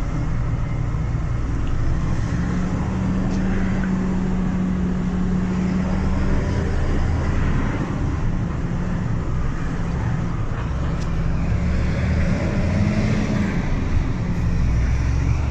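Iveco Eurocargo delivery truck heard from inside the cab while driving slowly: a steady low engine drone with road noise, its pitch lifting slightly about twelve seconds in.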